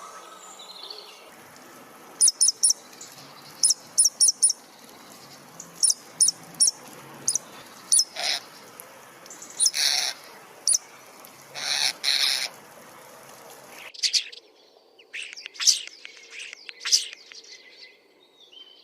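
A common starling calling: groups of two or three short, very high whistled notes and several harsher, grating calls. About fourteen seconds in, the recording cuts to a different bird's run of high chirps.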